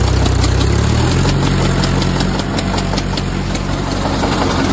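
Small engine of a homemade mini tractor running steadily with a regular chugging beat, its note shifting about a second in.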